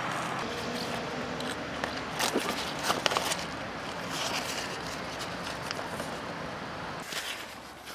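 Crumpled paper map crinkling and crackling as it is handled, in short bursts about two seconds in and again near the end, over steady outdoor background noise.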